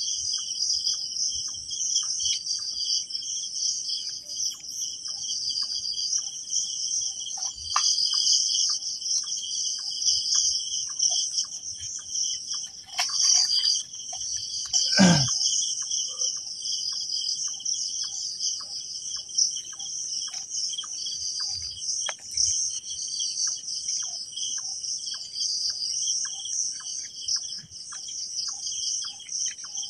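Crickets and other night insects chirping steadily in two high-pitched bands. About halfway through, one brief sound sweeps quickly down in pitch.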